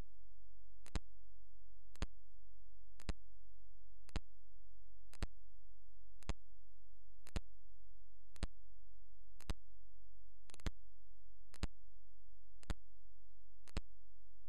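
A sharp tick repeating evenly about once a second over a steady low hum.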